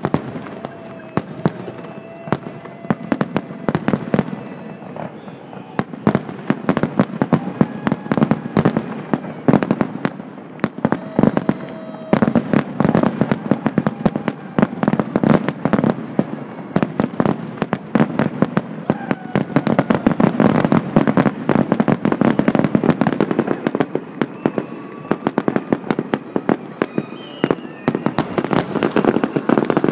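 Fireworks finale: a rapid, near-continuous barrage of aerial shell bursts and crackles, growing denser about twelve seconds in.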